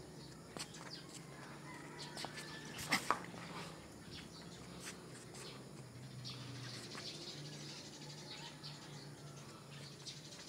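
Scattered light clicks and taps from a dog's metal chain and claws as it walks about on a concrete floor, with two sharper clicks about three seconds in. Faint bird chirps and a low hum sit behind.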